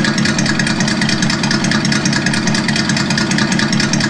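Sense Innovations ESS-One sound module playing a simulated engine idle through its speaker, a steady, evenly pulsing engine note.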